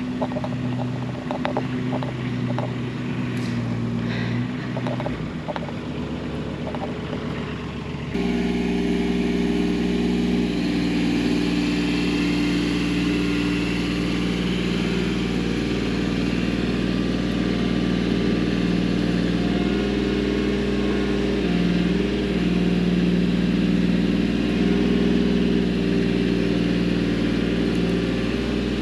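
Engine of the compact earthmoving machine running steadily while picking up brush piles, with scattered clicks and knocks in the first few seconds. About eight seconds in, the sound cuts to a louder engine note that dips briefly in pitch a little past the middle.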